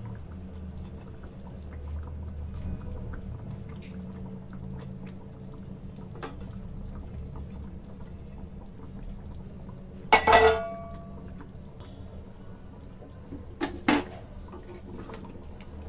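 Metal cookware clanking: one loud clank that rings briefly about ten seconds in, then two lighter clinks near the end, over a low steady hum.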